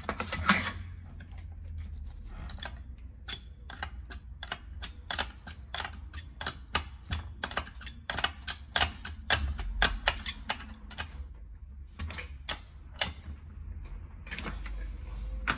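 Metal wrench clicking and clinking on the nut of the ATV rear gearbox shaft as the nut is run down, in quick irregular strokes, several a second, that stop about a second and a half before the end.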